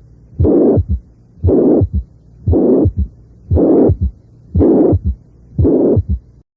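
Recorded heart sounds of severe mitral regurgitation: each beat brings a loud systolic murmur, then the second heart sound and a low third heart sound. The beats come about once a second, and the sound stops near the end.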